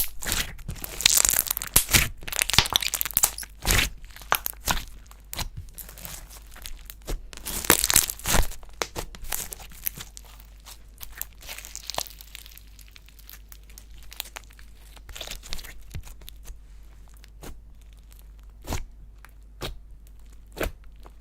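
Slime mixed with clay being squished and pulled by hand, giving irregular sticky crackles and pops. The crackling is busiest in the first few seconds and again about eight seconds in, then thins to scattered pops.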